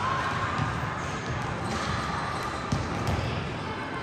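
Basketballs bouncing on a gym floor, a run of dull thumps.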